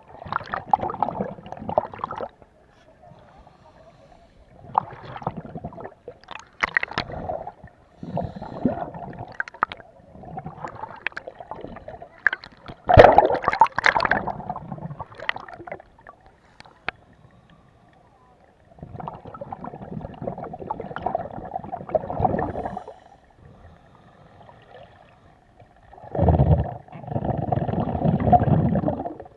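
Scuba breathing in the water: bubbles from a diver's regulator exhaust gurgling in bursts, about six breaths a few seconds apart with quieter gaps between them, the loudest about halfway through.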